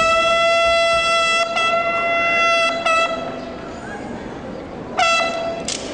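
A bugle (corneta) sounding one held note at a fixed pitch, broken briefly after about a second and a half, then cut off about three seconds in; after a pause the same note sounds again shortly, about five seconds in, over outdoor crowd noise.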